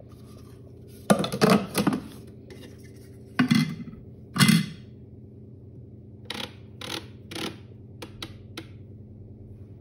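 Bimby (Thermomix) kitchen robot being handled: three loud clattering knocks as the lid area is handled. Then a run of about six short clicks as the selector dial is turned to set the time, over a steady low hum.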